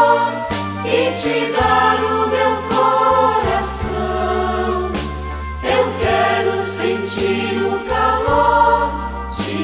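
Christian worship song: a choir singing over instrumental accompaniment with a steady bass line.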